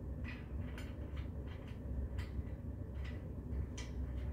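Metal bed-frame rails being handled and fitted together: a few irregular light clicks and taps of metal on metal, over a steady low rumble.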